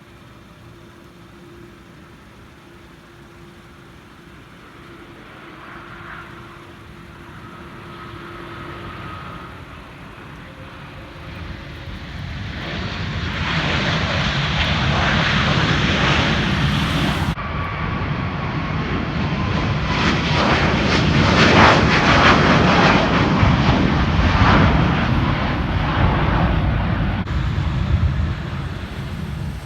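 Jet airliner's engines passing close: a noise that swells over several seconds, stays loud for much of the second half, then starts to fade near the end.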